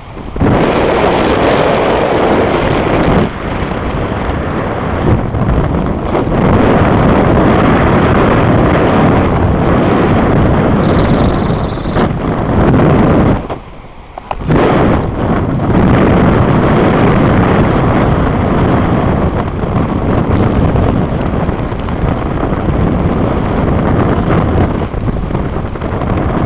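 Loud, steady rush of wind over a skydiver's helmet-mounted microphone in freefall, with a brief drop about fourteen seconds in and a short high beep a little before it.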